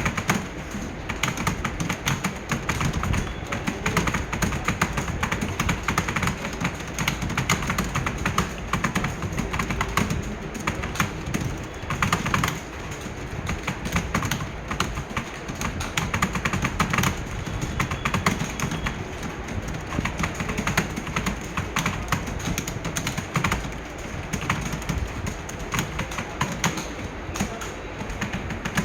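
Several computer keyboards being typed on fast and without pause, a dense, continuous clatter of key presses during a typing speed test.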